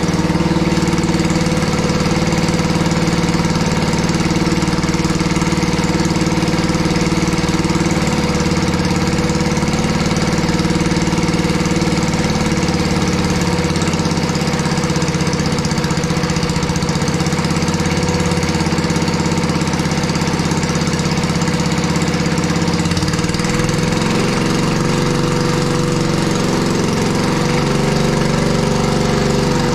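Cub Cadet garden tractor's single-cylinder Kohler engine running steadily. Its note wavers and shifts a little about two-thirds of the way through.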